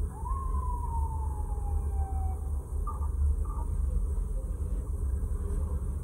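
Low, steady engine rumble of cars idling in traffic, heard from inside a car's cabin, with one falling whine in the first two seconds and two short faint tones about three seconds in.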